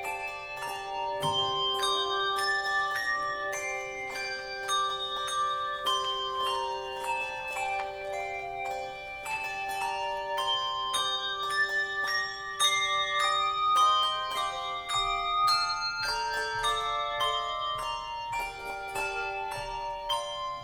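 Instrumental music: a melody of struck, long-ringing notes, several a second, over a held lower note.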